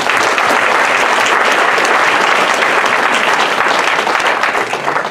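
Audience applauding: dense, loud clapping that starts all at once and thins out near the end.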